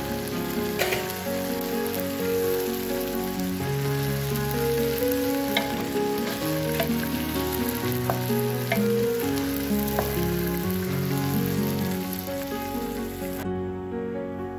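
Diced vegetables sizzling and frying in a pan while being stirred, with a spatula clicking against the pan several times; the sizzle stops about 13 seconds in. Background music plays throughout.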